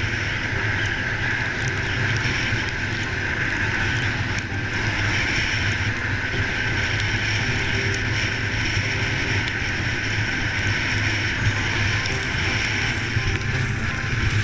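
2002 Yamaha SX Viper's 700cc three-cylinder two-stroke snowmobile engine running steadily under way.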